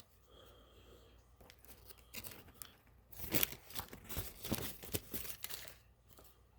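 Paper fast-food wrapper crinkling and tearing in irregular bursts, busiest from about three to six seconds in.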